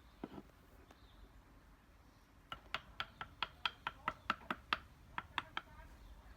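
Wood carving: a quick run of sharp taps on wood, about four a second, that starts about two and a half seconds in and stops shortly before the end.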